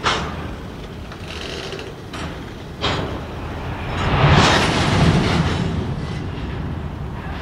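Freight train of covered hopper cars rolling slowly and braking to a stop, with metal clanks and bangs from the couplers. There is a sharp bang at the start and another about three seconds in. A louder grinding stretch comes around four to five seconds in.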